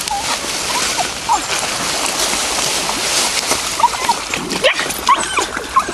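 Dogs splashing through shallow river water, with short high whines and yips from the dogs throughout, coming thicker in the second half.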